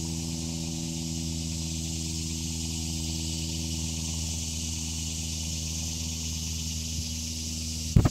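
A motor or engine running steadily: a low droning hum with an even high hiss over it, and one sharp bump right at the end.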